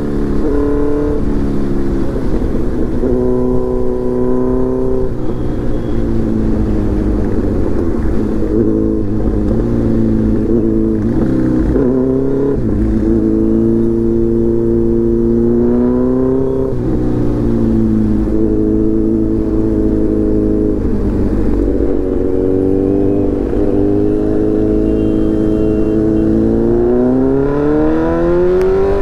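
Kawasaki Z900's inline-four engine through a full Arrow titanium exhaust, ridden on the road: revs climb and drop several times through gear changes, settle into steady runs in between, and climb hard near the end.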